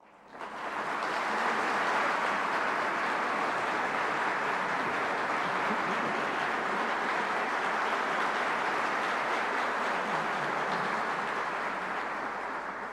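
Audience applauding steadily, fading in over the first second and holding level throughout.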